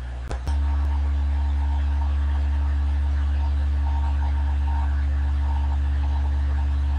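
Steady low electrical hum, which steps up louder after a couple of short clicks about half a second in.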